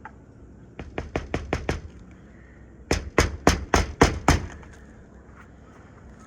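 Hammer driving roofing nails into asphalt shingles: a run of about six quick strikes, then after a short pause a second, louder run of six or seven.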